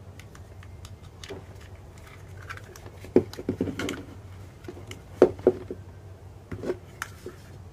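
Handling noises: a scattering of light clicks and knocks over a steady low hum, the loudest knocks about three and five seconds in.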